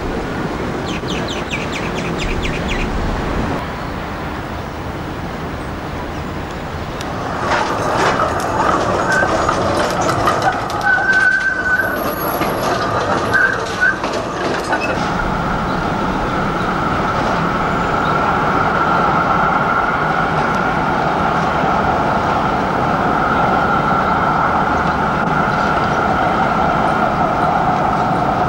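Electric street trams on street track: clicking and clatter of wheels over rail joints as a tram passes, with a brief high squeal, then a steady whine over a low hum as another tram approaches.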